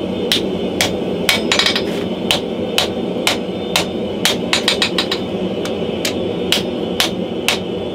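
Hand hammer forging a red-hot steel cleaver blank on a chain-wrapped anvil: sharp blows about two a second, with a quick run of light taps twice. A steady roar of the gas forge runs underneath.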